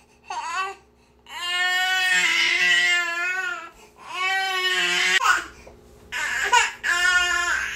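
Infant crying: a short cry, then long drawn-out wails that rise and fall in pitch, about three in all, broken by brief catches of breath.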